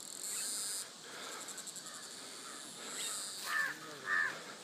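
A crow cawing twice near the end, two short harsh calls, over a faint high hiss.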